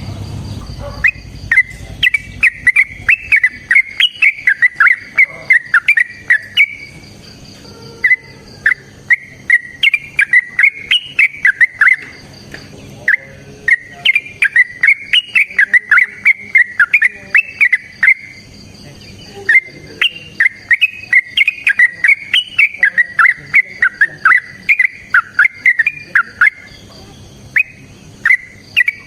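Yellow-vented bulbul (trucukan) singing loudly in long runs of rapid, bubbly whistled notes, about five phrases with short pauses between them.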